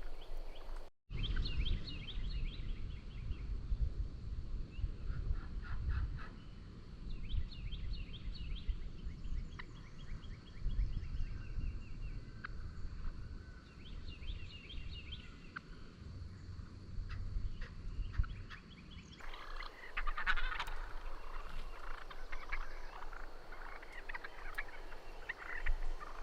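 A group of young wild turkeys (Osceola jakes) gobbling repeatedly from the roost, several birds calling in quick rattling bursts that overlap. For most of the clip a low rumble runs beneath the calls.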